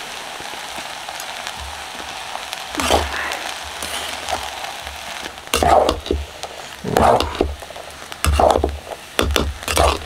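Vegetable fried rice sizzling in a metal pot over a campfire, with a metal spoon stirring and scraping through it about five times from about three seconds in.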